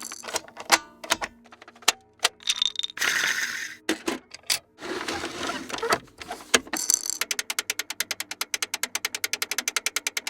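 A quick succession of small plastic and mechanical toy sounds: scattered clicks, knocks and rattles, a short whirring burst about three seconds in, then a long run of fast, even clicks, about eight a second, like a toy's ratchet or wind-up mechanism.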